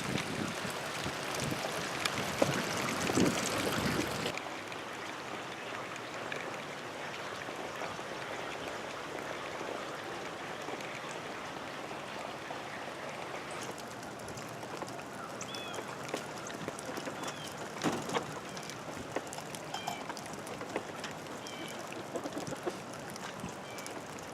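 Outdoor ambience: a steady rushing noise, louder for the first four seconds. A few short bird chirps and clicks come in over the second half.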